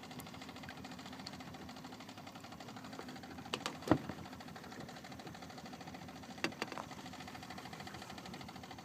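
Boat's outboard motor idling steadily with a fast even pulse, with a few sharp knocks just before four seconds in and a couple more a few seconds later.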